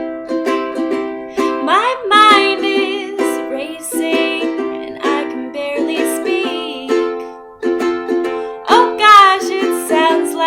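Ukulele strumming an acoustic song intro in an even rhythm, with a melody line that glides upward into wavering held notes twice, about two seconds in and again near the end.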